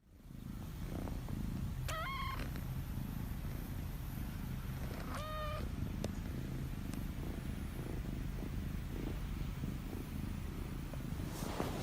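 Chinchilla golden kitten purring steadily, with two short, high meows about two seconds and five seconds in.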